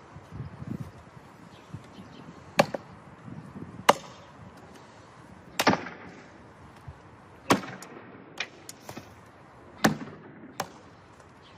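Sharp chopping strikes, a blade hitting a target: five loud hits one to two seconds apart, with a few lighter knocks between them.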